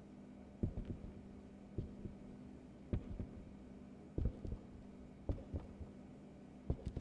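Slow heartbeat sound effect: a pair of low thumps about every second and a quarter, over a steady low hum.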